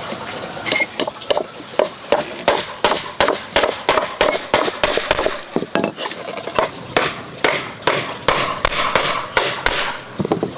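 A tool striking wood in a steady run of sharp blows, about two to three a second, stopping shortly before the end.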